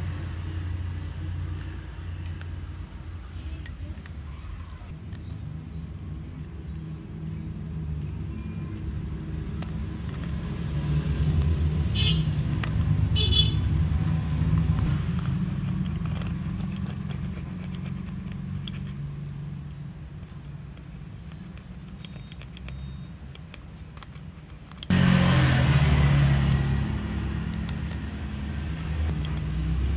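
A steady low motor-like rumble in the background, with light scraping and a few sharp metal clicks from a hobby knife working on a phone's metal midframe.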